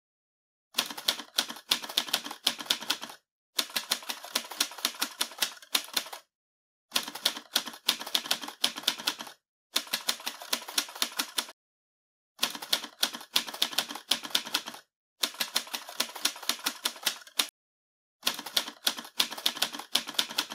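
Typewriter sound effect: keys clattering in rapid runs of about two to three seconds, seven runs in all, with short dead-silent pauses between them, as text is typed out.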